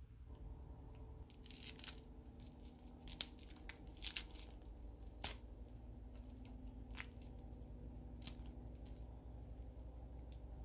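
Crinkly plastic wrapper of a lollipop being twisted and torn off by hand. A burst of crinkling and tearing runs from about one to five seconds in, followed by a few single sharp crackles.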